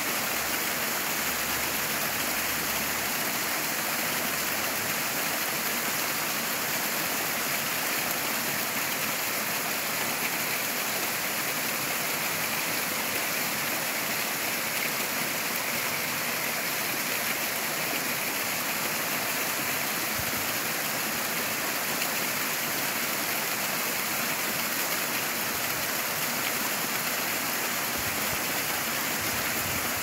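Narrow waterfall pouring down a rock face and splashing onto the stones below: a steady, unbroken rush of falling water.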